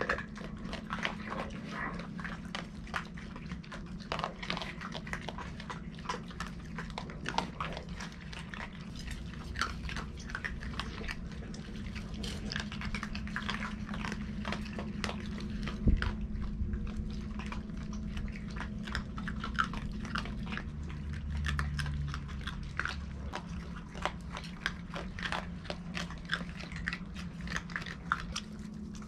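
Several raccoons crunching dry cat kibble from metal bowls: a dense, irregular crackle of chewing and clicks, over a steady low hum. One sharper knock about halfway through.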